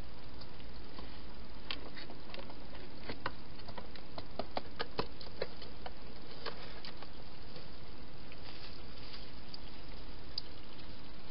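A wild hedgehog eating and moving about in a plastic feeding box: scattered small clicks and taps, busiest in the middle, over a steady background hiss.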